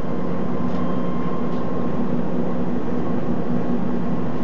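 Iowa Interstate diesel switcher locomotive running with a steady drone.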